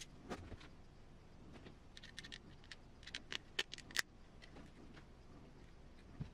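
Faint light clicks and taps of small kit parts being handled and set down, with a quick run of sharper clicks from about two to four seconds in.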